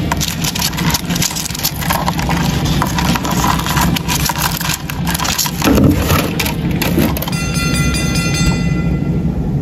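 Stag beetles' clawed legs scratching and clicking on bark as the two beetles grapple, over a steady low rumble. About seven seconds in, held ringing tones come in.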